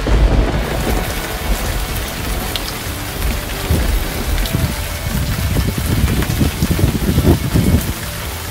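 Rain pouring down steadily, with a deep, uneven low rumbling under it, loudest in the second half.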